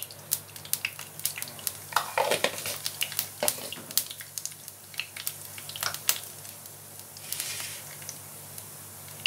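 Cumin seeds crackling in hot mustard oil: scattered, irregular sharp pops over a light sizzle as the seeds splutter in the tempering.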